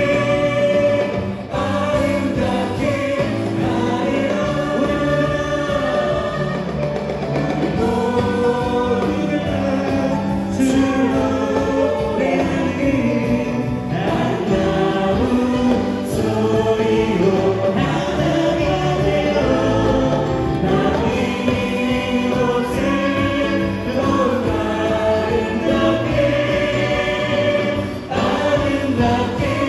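Church praise team singing a Korean worship song, male and female voices together on handheld microphones, over live band accompaniment.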